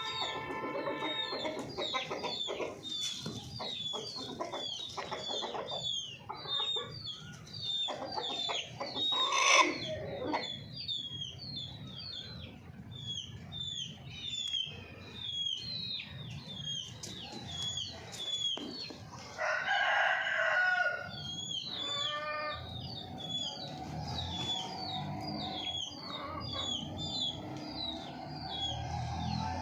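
Golden Misri chickens calling: many short high peeps repeated throughout, with clucking. A louder, drawn-out call comes about twenty seconds in, followed by a quick run of clucks.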